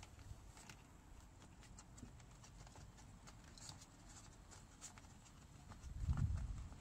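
Scattered light clicks and rustles of hands handling plastic door trim and wiring, over a low rumble that swells louder about six seconds in.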